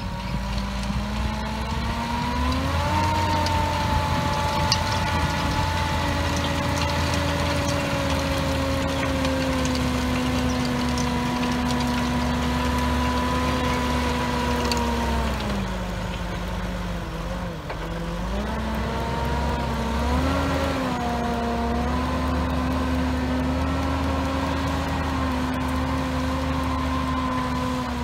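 Same Audax 220 tractor's six-cylinder diesel engine running steadily under load while driving a Maschio Aquila power harrow through the soil. The engine note rises in the first few seconds, sags in pitch for a couple of seconds a little past halfway, then picks back up and holds.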